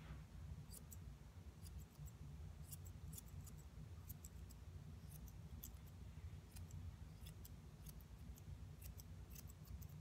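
Curved grooming shears snipping a poodle's leg hair: faint, quick cuts in an uneven stream, about two or three a second, some in close pairs.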